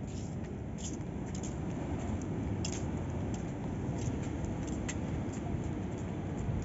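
Wind rumbling on the phone's microphone, with small sharp clicks scattered through it.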